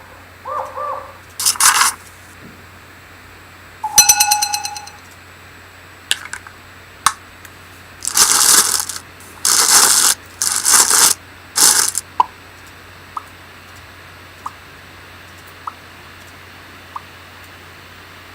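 A run of short, unrelated sound effects played one after another. It opens with a few quick sliding tones and a burst of hiss, then comes a buzzy held tone that starts sharply, a few clicks, and four loud noisy bursts in a row. After that come five faint ticks about a second apart over a steady low hum.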